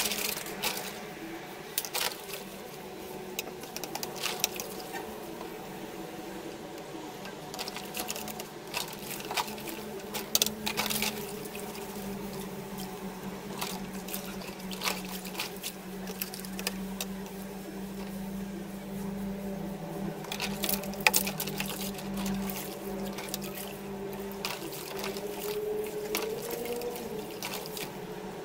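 Soapy water sloshing and splashing in a plastic bucket as antenna rods are washed by hand, with scattered sharp clicks as the metal rods knock together and against the bucket.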